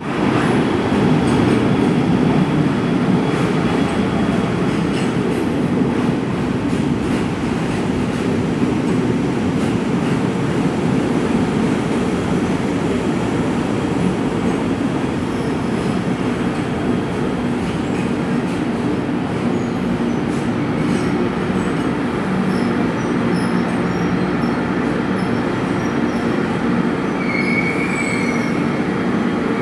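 Caracas Metro MR-12 train running into a station, a steady loud rumble of wheels on rail, with a brief wheel squeal near the end.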